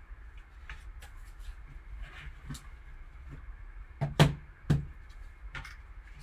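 Hands handling card-box packaging: scattered light clicks and taps, with two louder knocks about four seconds in.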